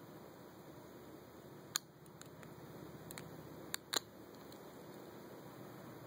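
Single-pin picking of a Chateau lock with spool pins: a few short, sharp clicks of the pick working the pins. One comes a little under two seconds in, then two close together about four seconds in, over a faint hiss.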